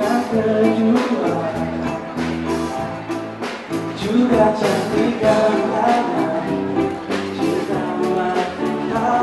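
Live band playing a song: a man singing into a microphone over acoustic guitar, with drums keeping a steady beat and a bass line underneath.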